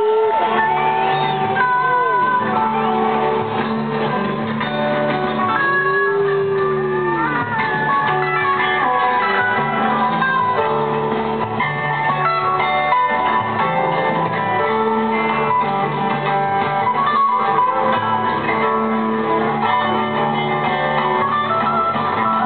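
Rock band playing live, with a guitar lead of bending, sliding notes over steady bass and drums.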